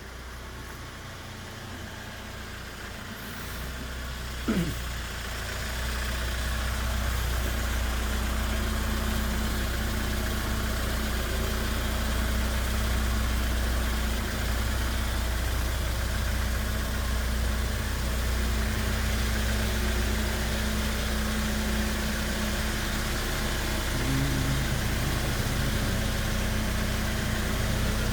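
A vehicle engine idling steadily, growing louder over the first few seconds and then holding even. About four and a half seconds in there is a short squeak that falls in pitch.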